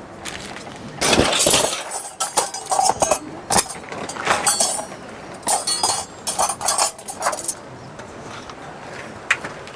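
Loud, irregular crinkling and clinking handling noise in quick bursts, starting about a second in and dying away near the end.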